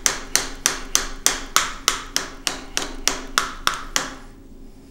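Tip of a serrated kitchen knife stabbing rapidly at a phone screen covered by a shock-absorbing plastic screen protector: sharp taps about three a second, stopping about four seconds in.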